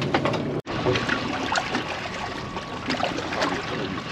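Seawater sloshing and trickling against a boat's hull, as a steady wash with small irregular splashes. The sound cuts out briefly about half a second in.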